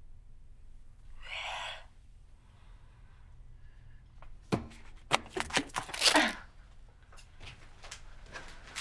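Tape being ripped off a plastic-wrapped package stuck to the underside of a wooden desk: a run of sharp crackles and rips beginning about halfway through, the loudest and longest rip coming a second or so later, after a short soft rustle about a second in.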